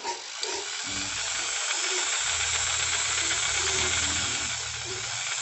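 Tolsen corded jigsaw running with no load, its blade stroking in the air with the orbital action on: a steady hiss over a low motor hum.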